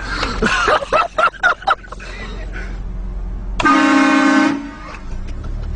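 Car-mounted train horn sounding one blast of about a second, several steady tones together, about three and a half seconds in.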